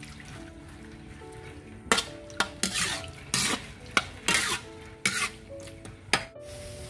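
A spatula scraping and stirring shredded coconut in sugar syrup in a pan as coconut jam is cooked down until dry. After a quieter start, a run of sharp scraping strokes begins about two seconds in, roughly two a second.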